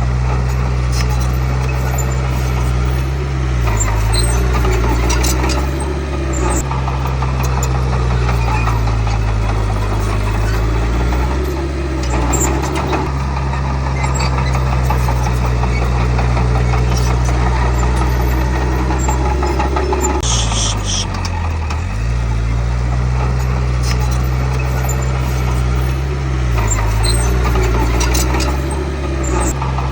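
Heavy diesel engine of earthmoving machinery running steadily, its pitch dipping briefly several times as it takes load. A brief high-pitched noise cuts in about twenty seconds in.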